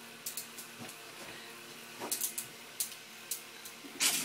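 Scattered faint clicks and light knocks over a steady hum, with a short louder burst of rustling noise near the end.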